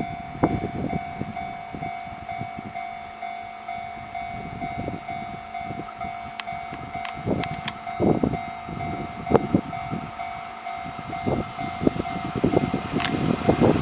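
A train passing over a railway level crossing, its wheels knocking irregularly on the rails, with the crossing's warning bell ringing as a steady tone.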